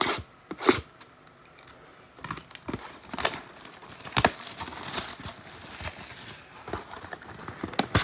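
Packaging of a sports-card hobby box being torn open: a couple of sharp clicks at the start, then several seconds of tearing and crinkling from about two seconds in.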